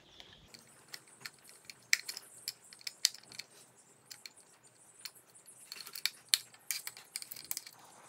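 Screwdriver working a terminal screw on a smart light switch: faint, irregular small metallic clicks and scrapes, with a few sharper clicks among them.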